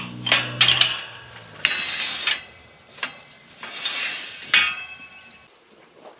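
Steel sheep sorting chute and gate being worked by hand: several loud metal clanks and rattles in short bursts, each ringing briefly.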